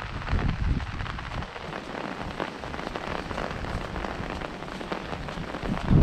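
Steady rain pattering on an umbrella held overhead, a dense patter of drops. Gusts of wind rumble on the microphone in the first second and again near the end, with a calmer spell in between.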